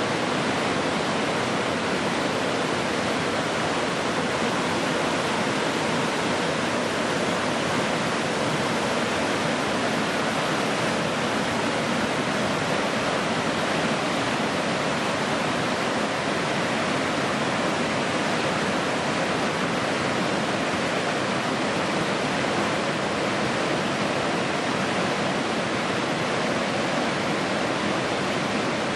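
Rocky Falls, white water cascading down ledges of red rock: a steady, unbroken rush of falling water.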